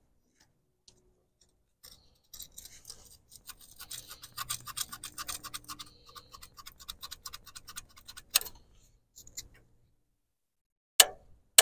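Breaker points in the distributor of a 1964 Farmall Cub being sanded clean, a fast run of short scratchy strokes for several seconds, to cure a no-spark ignition. A sharp click follows, with another, louder click near the end.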